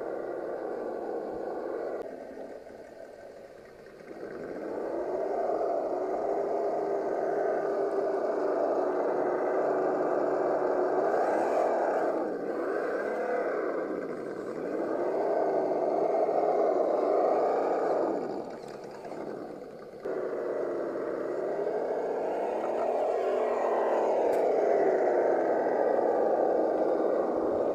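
Radio-controlled scale crawler climbing loose rock and dirt. Its electric motor and geartrain whine, the pitch rising and falling with the throttle, and it eases off briefly twice.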